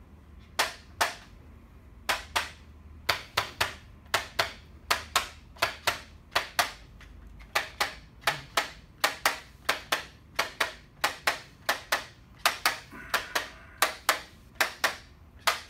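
Dozens of sharp percussive taps in quick runs of two or three, roughly two to three a second, with a short pause about halfway through.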